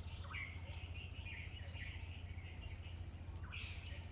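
Birds chirping in short repeated calls over a steady low hum.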